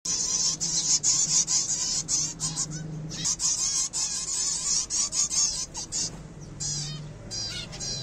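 Zebra finches, adults and fledglings together, calling in a rapid, continuous high-pitched chatter of short calls.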